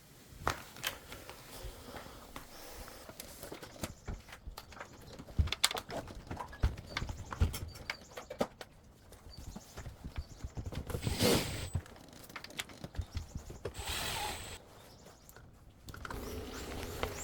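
Irregular clicks and knocks of hand work on an indoor air-conditioner unit, with two short rushing noises about eleven and fourteen seconds in.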